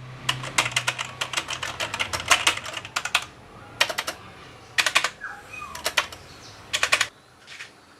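Keys of a mechanical keyboard being typed: a fast run of clacking keystrokes for about three seconds, then short bursts of a few keystrokes about once a second.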